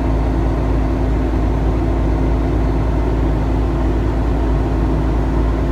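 PACCAR MX-13 inline-six diesel of a Kenworth T680 running steadily while parked during a forced DPF regeneration: a constant low rumble with a steady hum over it.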